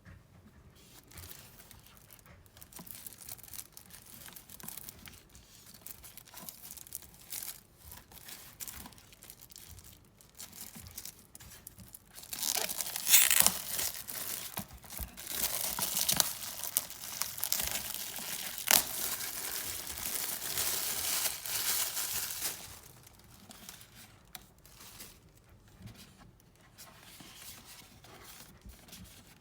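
Packaging of a small model-car box being handled and opened: light rustles and clicks at first, then about ten seconds of loud tearing and crinkling with a couple of sharp rips, settling back to quiet handling near the end.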